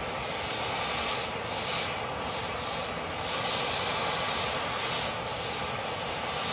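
Small jet engine running steadily at speed: a high, piercing turbine whine held on one pitch over a dense rushing exhaust noise.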